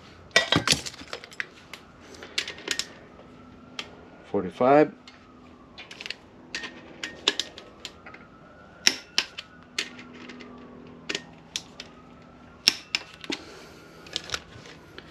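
Scattered metallic clicks and clinks of a ratchet torque wrench working the connecting-rod cap bolts of a Honda K24 engine block, tightened toward 45 lb-ft.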